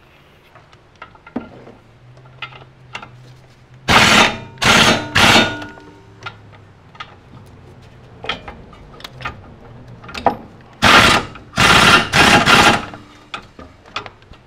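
Half-inch air impact wrench driving in the brake caliper mounting bracket bolts: three short bursts about four seconds in and three more about eleven seconds in, with light clicks of the tool and bolts between.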